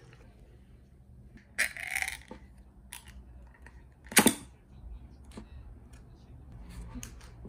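A beer can's pull-tab cracked open with a sharp hiss about four seconds in, the loudest sound. Before it, a brief scratchy noise about two seconds in, and a few light clicks and taps.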